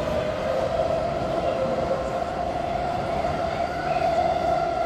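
Taipei Metro train pulling out of an underground station: steady rolling and running noise of the departing train, with a steady mid-pitched tone and a fainter higher tone that rises slightly near the end.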